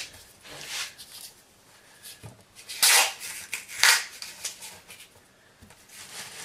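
Adhesive tape being pulled off its roll, with two loud ripping pulls about a second apart in the middle and lighter rustling as the tape is pressed down along a wooden frame edge.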